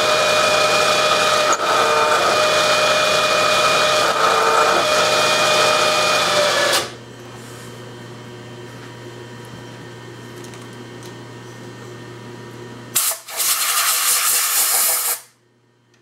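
Bridgeport milling machine countersinking holes in metal: a loud, steady machining noise with a constant whine. About seven seconds in it drops to the spindle's low hum. Near the end the hum stops and a blast of compressed air lasting about two seconds blows the chips off the part.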